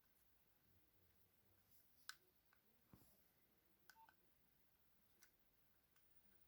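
Near silence with about five faint clicks between two and five seconds in, the first the loudest, and a short faint beep about four seconds in: keypad presses on a Nokia 6030 handset.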